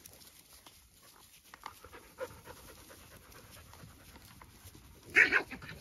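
A dog panting softly, with a short, much louder noisy sound about five seconds in.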